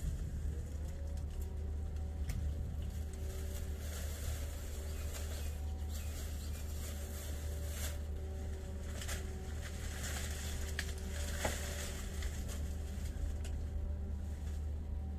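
Leaves and a plastic bag rustling, with a few sharp snaps and clicks as lychees are picked from the tree, over a steady low hum.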